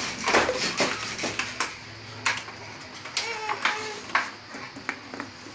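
Stiff clear plastic blister packaging of a kitchen faucet crackling and snapping as it is handled and worked open, in an irregular string of sharp clicks.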